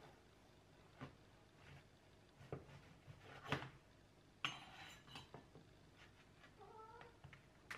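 Serrated bread knife cutting a crusty baguette on a wooden cutting board: a handful of soft knocks and crackles of the crust breaking, the loudest about three and a half seconds in. A faint short squeak comes near the end.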